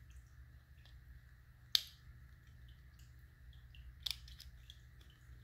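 Small clicks and taps of plastic parts of a teeth-whitening LED light being pressed together in the hands, with one sharp snap a little under two seconds in and a few more clicks near the end.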